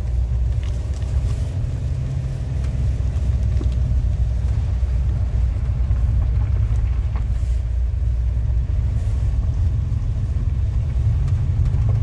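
Steady low rumble of a car driving, heard from inside the cabin: engine and tyre noise on a paved road.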